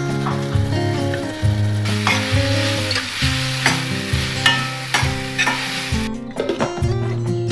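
Vegetables and spices sizzling in a stainless steel frying pan while a steel ladle stirs them, its strokes scraping against the pan, with background music underneath. The sizzling and scraping stop about six seconds in.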